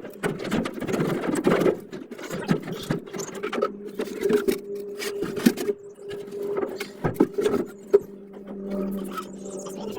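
Irregular metallic clicks, knocks and scraping from hand work fitting a new rear bearing on a swamp cooler, over a steady low hum.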